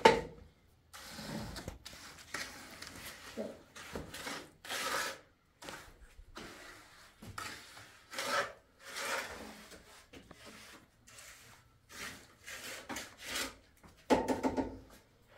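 Steel trowel scraping and smoothing wet cement mortar on a window sill, in repeated irregular strokes.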